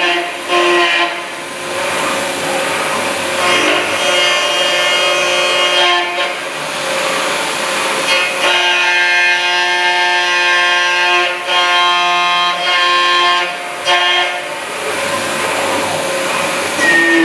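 CNC milling machine's spindle and end mill cutting an aluminium block, with a high whine over cutting hiss. The pitch pattern of the whine shifts every few seconds as the cut changes.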